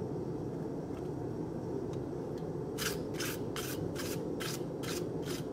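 Steel wire brush scrubbing red-hot steel handle stock on the anvil to clear off forge scale, in quick even strokes of about two and a half a second that start a little under three seconds in. Under it runs the steady noise of the propane forge.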